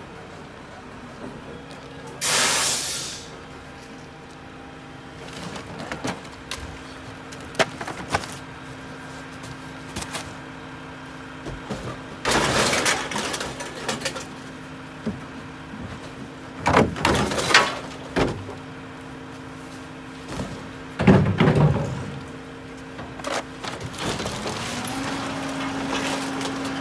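Split rear-loader garbage truck's engine idling while recyclables are tipped by hand into the hopper, with several bursts of clattering containers and cardboard, and a short hiss about two seconds in. Near the end the engine speeds up, as it does when the packer is engaged to compact the load.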